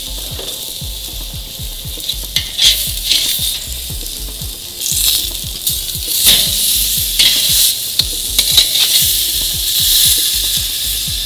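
Steaks searing on grill grates over hot charcoal, sizzling with a steady hiss and constant crackle. About halfway through, a metal spatula clicks and scrapes on the grates as a steak is flipped, and the sizzle grows louder.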